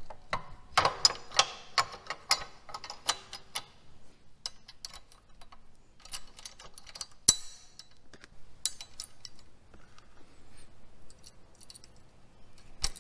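Small metal parts clicking and clinking as a motorcycle rear brake pedal and its threaded clevis are handled and fitted by hand. The clicks are busiest in the first few seconds, with one sharp click about seven seconds in and a few more scattered later.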